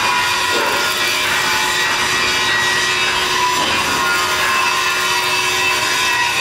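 A power tool at work, making a steady rasping noise over a constant hum, unchanged throughout.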